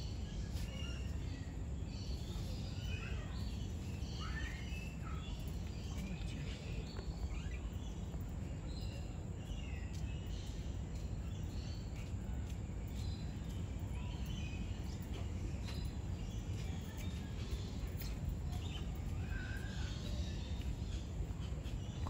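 Many small birds chirping in short, scattered calls over a steady low rumble of background noise.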